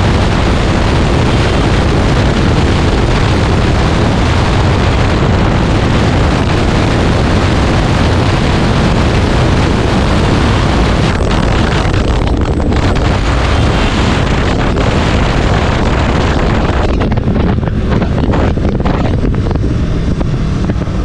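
Heavy wind rush on the microphone of a KTM RC 200, a single-cylinder sport bike, riding at near top speed with its engine running under the wind noise. The roar eases slightly in the last few seconds.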